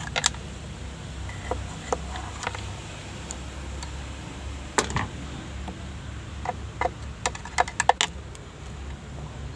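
Hand tools and metal parts clicking and knocking while a truck horn is being unbolted: scattered sharp clicks, a louder knock about five seconds in, and a quick run of clicks near the end, over a low steady hum.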